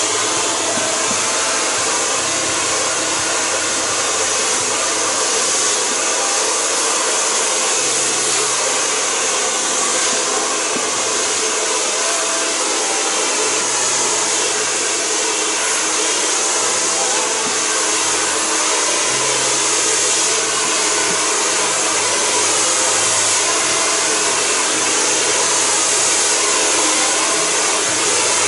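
Handheld hair dryer running steadily, blowing air as it dries a person's hair.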